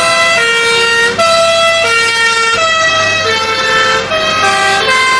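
Two-tone sirens of a column of fire engines, the high and low notes alternating steadily, with more than one siren sounding at once so their notes overlap.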